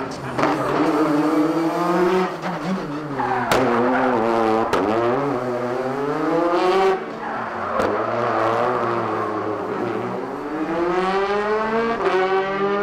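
Rally car's engine revving hard through a tight chicane, its pitch climbing again and again and then dropping at each gear change or lift-off. A couple of sharp cracks about three and a half and four and a half seconds in.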